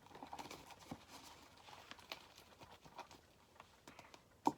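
Slime being stirred in a bowl with a mixing stick: soft, irregular clicks and sticky taps, with one sharper knock near the end.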